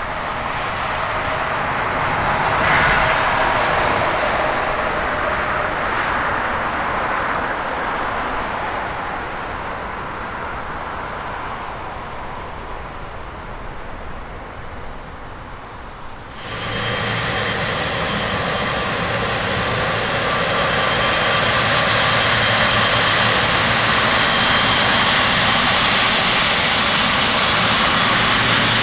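Boeing 777-300ER's GE90 jet engines at takeoff thrust as the airliner climbs away, the noise slowly fading. About two-thirds of the way through, an abrupt cut to a Boeing 777F freighter taxiing, its jet engines running steadily with a light whine.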